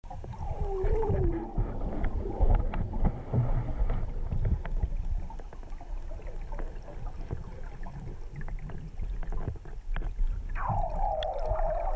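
Underwater sound picked up by a submerged camera: a low rumble of moving water with scattered clicks and knocks. Whining tones slide down in pitch near the start and again near the end.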